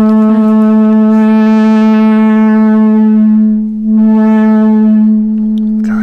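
EMS Synthi VCS3 analogue synthesizer holding a steady, buzzy drone on one low pitch, rich in overtones, as its knobs are turned. The upper overtones dull briefly about three and a half seconds in and then come back, with faint arching high sweeps above the drone.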